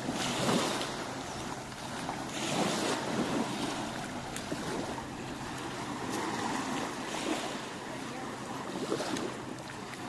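Small waves washing up on a sandy beach, swelling and ebbing every few seconds, with wind on the microphone.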